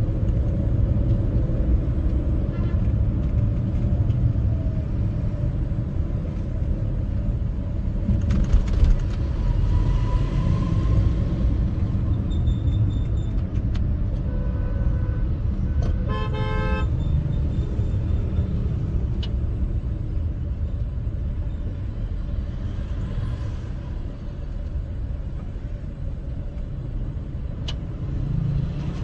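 Busy city street traffic heard from a moving car: a steady low rumble of engines and tyres, with a few short horn toots from other vehicles, the loudest a brief horn blast about sixteen seconds in.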